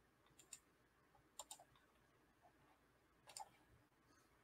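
Near silence with a handful of faint, short clicks.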